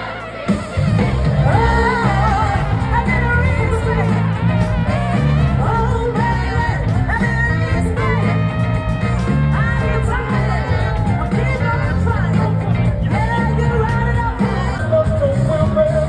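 Music with a singing voice over a steady bass and drum beat.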